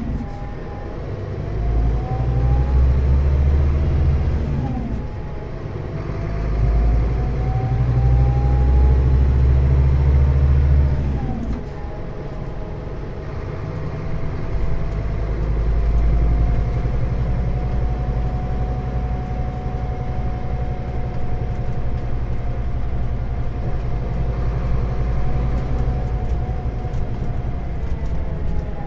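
Scania Citywide Interurban bus's diesel engine and drivetrain heard from inside the bus as it pulls away and gathers speed: the engine swells under load, drops off about five and about eleven seconds in as the automated manual gearbox changes gear, then runs steadier while cruising, with a faint whine rising and falling along with it.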